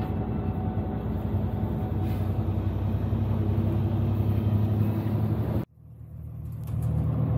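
A bus engine running steadily as heard from inside the cabin, a low hum with road noise. It cuts off suddenly about five and a half seconds in, and a similar engine hum fades back in.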